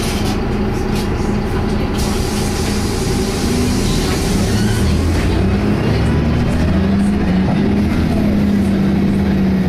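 Optare Tempo single-deck bus heard from inside while driving: engine and Allison automatic gearbox running, with a low whine that climbs in pitch and holds, the Voith-like transmission sound that is unusual for an Allison gearbox.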